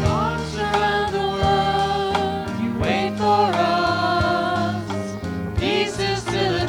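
Music: a song with a voice sliding up into long held notes over sustained accompaniment.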